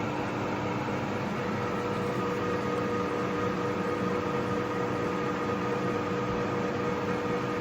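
Republic Lagun 16x60 engine lathe running under power: a steady hum from its spindle and geared headstock, with a few constant tones.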